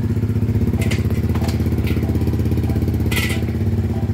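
Suzuki Gixxer SF250's single-cylinder four-stroke engine idling steadily with an even, fast pulse, with a few brief hissy noises over it, the strongest about three seconds in.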